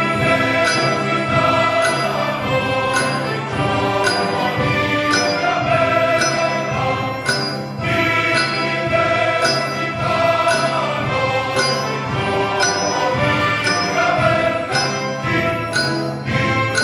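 Background music with sustained chords and a steady beat of bright percussive hits.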